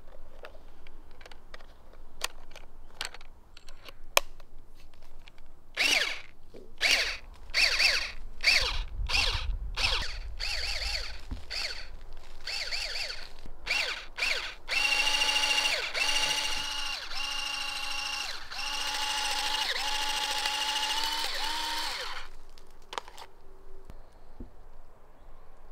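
Electric toy water pistol: plastic clicks as the gun and magazine are handled, then a series of short whirring bursts from its pump motor as the trigger is pulled. These are followed by longer runs of steady motor whine in roughly one-second stretches. A few more plastic clicks come near the end as the magazine is pulled out.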